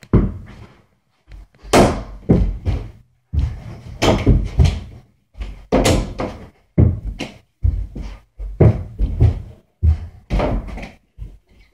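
Mini basketball repeatedly thudding against an over-the-door hoop's backboard and rim and the closet door it hangs on, then bouncing back. Many irregular thuds, about one or two a second, as missed shots rebound until one goes in.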